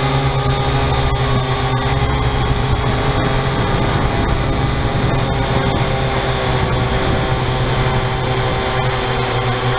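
Syma X8-C quadcopter's four brushed motors and propellers running in flight, heard up close through the onboard camera's microphone. A steady buzzing hum whose pitch shifts a little as the throttle changes.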